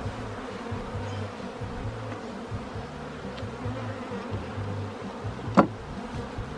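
Honeybees buzzing around an open nucleus hive, their hum swelling and fading as bees fly past. One sharp knock sounds about five and a half seconds in.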